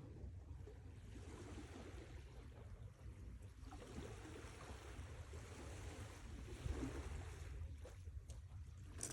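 Sea waves washing in and drawing back, faint, in slow swells over a steady low rumble.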